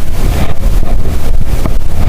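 Loud wind buffeting the microphone: a heavy, gusting rumble, with the wash of sea water beneath it.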